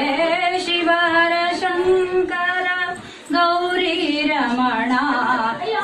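A woman singing a slow song in long held notes that step between pitches. There is a short breath break about three seconds in, then wavering, ornamented phrases.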